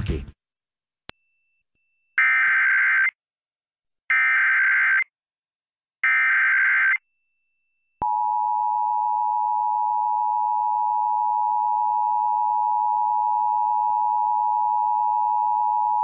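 Emergency Alert System tones for a child abduction (AMBER) alert. First come three roughly one-second bursts of SAME digital header data about two seconds apart. Then, about eight seconds in, the steady two-tone attention signal (853 and 960 Hz) starts and keeps sounding.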